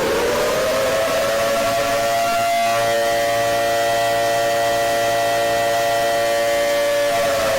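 Warning siren finishing its wind-up, holding a steady chord of several tones, then starting to wind down in pitch near the end.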